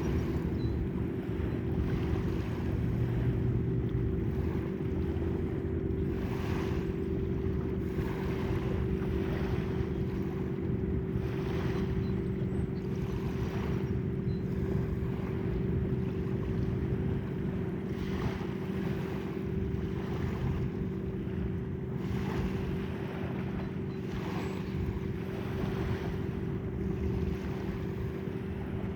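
A steady low engine drone from a boat on the harbor, with wind buffeting the microphone and waves washing in the background.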